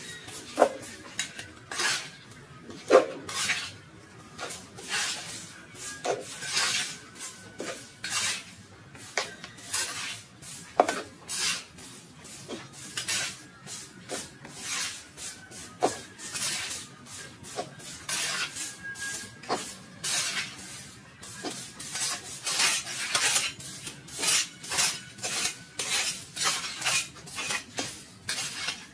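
Repeated scraping strokes over ground and debris, irregular at about one or two a second, with occasional sharp metallic clinks.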